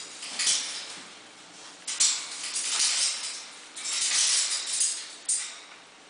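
Two boxer dogs play-wrestling on a blanket-covered futon: irregular bursts of scuffling and rustling, with a few soft knocks.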